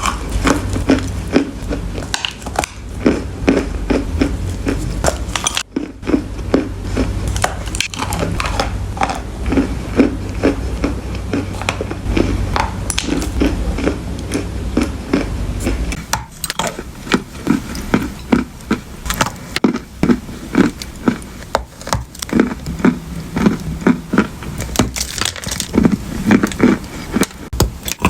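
Close-miked crunching of someone biting and chewing dry clay, a steady run of crisp crunches about two or three a second.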